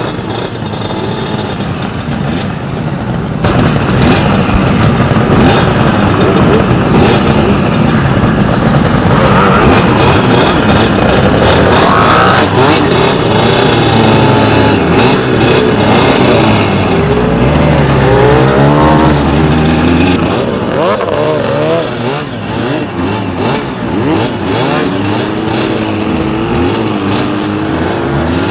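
Suzuki RG500's square-four two-stroke engine and the other two-stroke motorcycles around it revving and accelerating through the gears, the pitch climbing and dropping again and again. It gets louder about three and a half seconds in and eases off after about twenty seconds, with wind rushing over the microphone.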